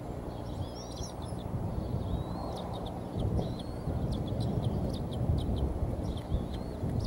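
Bald eaglets giving high, thin chirping calls in quick succession as they are fed, over a steady low rumble of wind and movement on the nest.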